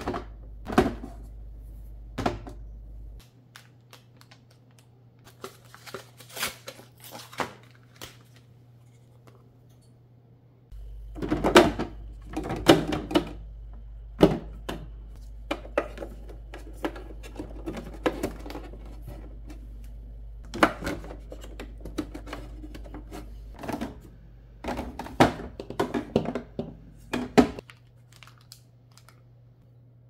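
Plastic sauce bottles and clear plastic refrigerator door bins knocking and clicking against each other as bottles are set in and shifted around, in irregular clusters of sharp taps and thunks.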